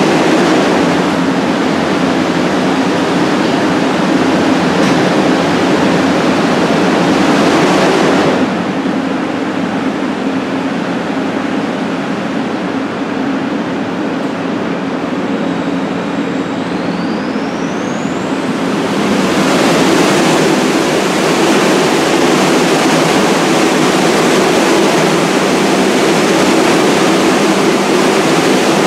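NYC subway 1 train of R62A cars pulling into the station: a steady, loud rush of wheels and running gear on the rails. The higher part of the noise drops away about 8 s in and comes back near 19 s.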